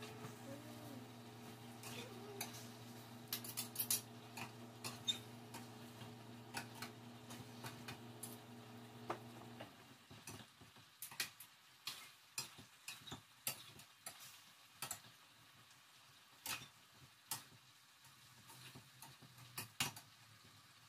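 Spatula or spoon clinking and scraping in a frying pan of chicken wings being sautéed, with scattered knocks of utensils and dishes throughout. A steady hum sits underneath and stops about ten seconds in.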